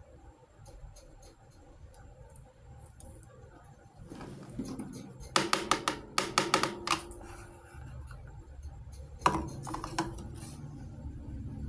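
Miniature toy kitchenware being handled: faint light taps, then a quick run of sharp clicks and clatters about five to seven seconds in, and a few more clicks around ten seconds.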